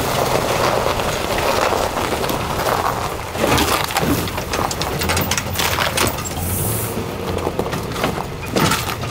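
Pickup truck towing a snowmobile trailer, driving slowly over frozen, rutted ground: crunching and cracking under the tyres, with sharp knocks and rattles. These are loudest about three and a half seconds in and again near the end.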